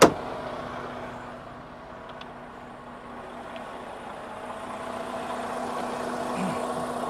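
A single sharp clack right at the start as the hood of a Freightliner Cascadia semi truck is latched shut by hand, followed by the truck's Detroit diesel engine idling with a steady hum that grows louder toward the end.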